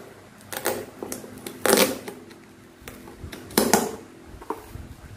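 Thin clear plastic container lid crinkling and scraping under the fingers as a paper label tag is peeled off it, in three short rustling bursts with a few small clicks between; the loudest burst comes about a second and a half in, another near the end.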